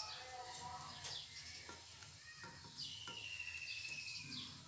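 Small birds chirping faintly: a few short falling chirps and one longer whistled note of about a second in the middle. A few light taps come from a pastry brush working in a metal pan.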